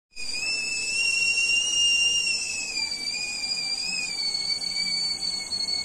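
Stainless-steel idli cooker's steam whistle blowing continuously, a steady high tone that wavers slightly and drifts a little lower in pitch. The cooker has come up to steam with the idlis cooking inside.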